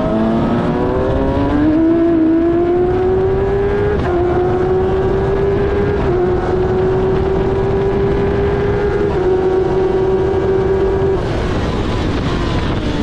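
Onboard sound of a Suzuki-engined F1000 single-seater race car at full throttle. The high-revving motorcycle engine note climbs, then dips briefly three times as it shifts up and holds high revs. Near the end it drops off as the driver lifts.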